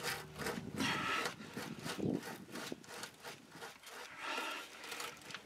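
Rubber exhaust hanger grommet being forced onto its metal hanger rod: dry rubber rubbing and scraping against metal in uneven strokes. It goes on stiffly because it wasn't lubricated.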